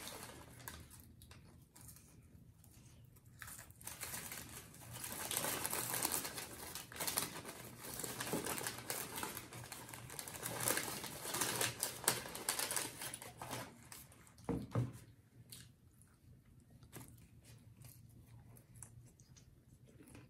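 Paper burger wrappers crinkling and rustling as they are unwrapped and handled, with irregular crackles and clicks that are busiest in the middle and thin out near the end. One louder knock about fourteen and a half seconds in.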